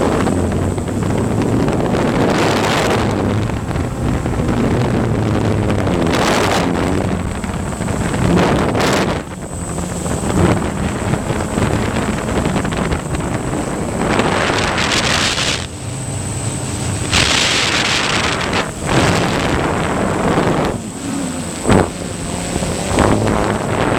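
Strong gusty wind buffeting the microphone in loud rushes that swell and fade, over the hum of a DJI Phantom 1 quadcopter's propellers.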